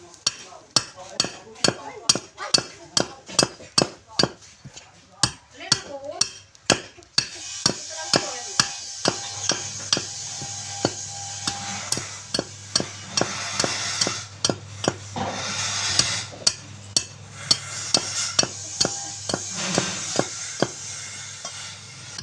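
Regular sharp hammering strikes, about two to three a second. About seven seconds in, a steady low machine hum with a hiss joins under the strikes.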